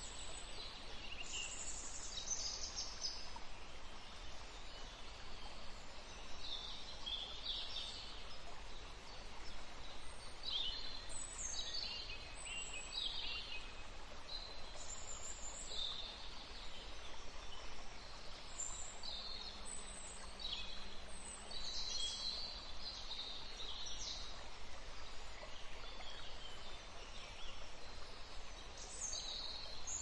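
Canaries and Lady Gouldian finches chirping: many short high calls, scattered and overlapping, over a steady background hiss.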